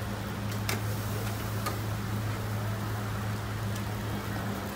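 Steady low electric hum with a few sharp clicks and taps of a metal spatula as wafers are lifted off small round hot irons onto a board; the clearest click comes just under a second in and another about a second later.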